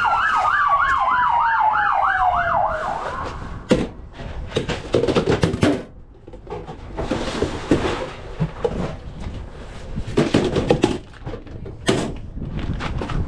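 An emergency vehicle's siren with a fast up-and-down warble over a slowly falling tone, fading out about three seconds in. After it come rustling and light clicks and knocks of food prep at a steel counter: paper and a plastic sauerkraut bag being handled.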